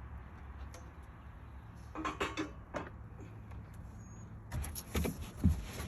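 Handling noises from unpacking sawmill parts: packing material rustling and parts shifting in bursts, with a sharp knock about five and a half seconds in.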